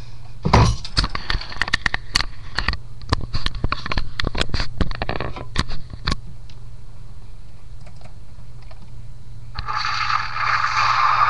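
Explosion sound effect played from a computer's speakers and picked up by a webcam microphone: a run of sharp cracks and crackling for about five seconds, then a steady hiss that starts near the end, over a steady low hum.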